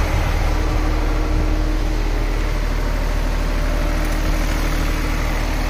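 Eicher 422ES air-cooled three-cylinder diesel engine of a 30 kVA silent generator set, running steadily at its governed speed with no load, the full load having just been switched off.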